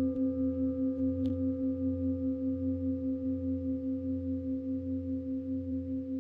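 A singing bowl ringing with one sustained tone that pulses several times a second and fades slowly. A faint tick comes about a second in.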